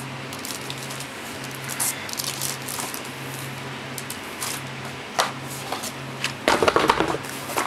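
Plastic bag crinkling and rustling as a boxed external hard drive is handled and set down, with a louder burst of handling noise from the packaging near the end, over a steady low hum.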